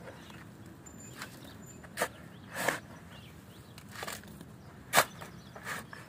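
Steel shovel blade stabbing and scraping into a pile of sand and soil, about six short gritty strokes, the sharpest about five seconds in.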